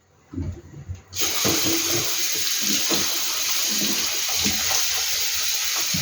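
Kitchen tap turned on about a second in, running steadily into the sink, with irregular low splashes and knocks of something handled under the stream.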